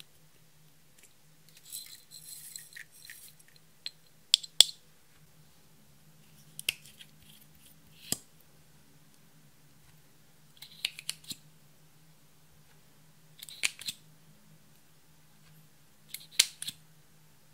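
Small plastic makeup containers being handled and opened: a glitter ball-shaped lip balm and a wand tube. Sharp plastic clicks and short rasping scrapes come in clusters every two to three seconds, the longest rasp about two seconds in, over a faint steady hum.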